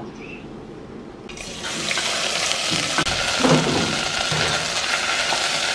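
Yellow kroeung paste of lemongrass, galangal, turmeric and garlic sizzling as it fries in hot oil, starting about a second and a half in after a quieter start. A dull knock comes about three seconds in.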